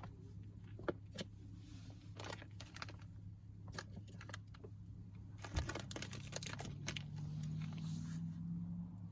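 Small wood campfire crackling: irregular sharp pops and snaps, coming thickest in a quick cluster a little past halfway. A low steady hum sits underneath and grows slightly louder toward the end.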